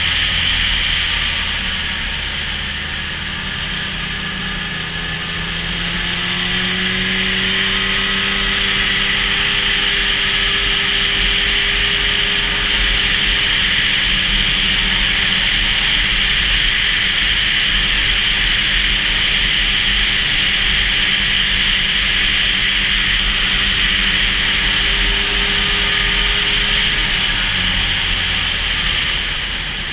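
Snowmobile engine running as the sled travels over snow. Its pitch rises about six seconds in, holds steady, and drops near the end, under a steady high hiss.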